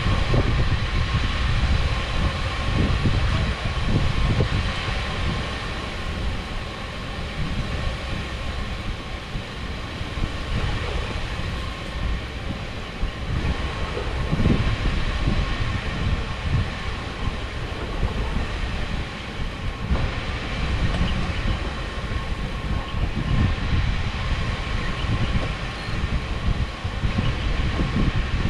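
Steady machinery rumble carrying a constant high hum, with gusts of wind buffeting the microphone in the low end.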